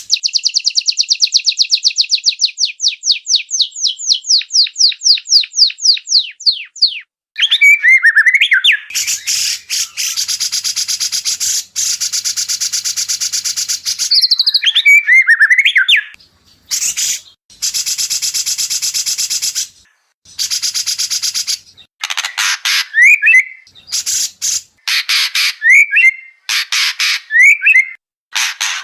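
White-rumped shama song in an edited training recording: a fast run of repeated high notes that slows over the first seven seconds, then loud bursts of harsh chattering mixed with whistled phrases, broken by short pauses.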